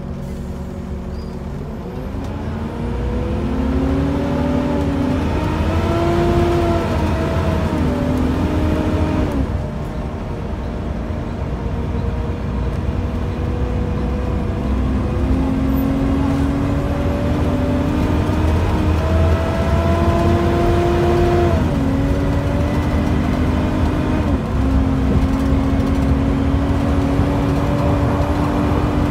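Volvo B7TL double-decker bus's six-cylinder diesel engine working hard as the bus accelerates, heard from the upper deck. The engine note climbs and drops back at each gear change, about 9, 21 and 24 seconds in, then holds steady at speed.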